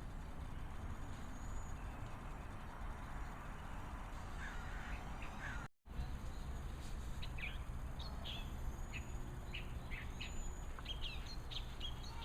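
Birds calling in a quick series of short, high calls over a steady low rumble, with the sound cutting out for a moment just before the calls begin.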